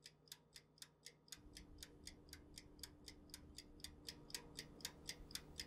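Clock-like ticking, about four evenly spaced ticks a second, growing gradually louder, with a faint low hum coming in about a second in.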